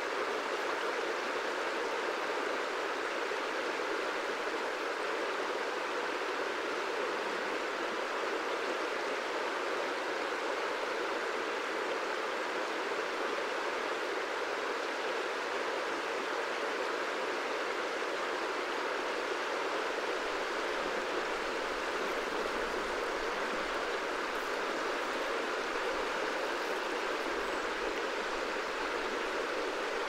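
Wide river flowing: a steady, even rush of moving water.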